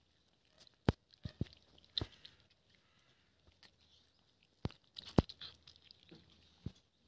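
A cat eating from a metal bowl: chewing and crunching, broken by several sharp clicks.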